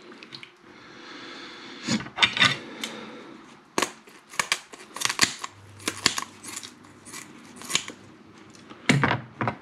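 Kitchen scissors snipping again and again through the tough spiny dorsal fin of a sea bass: a string of short, sharp cuts, irregularly spaced, a few a second.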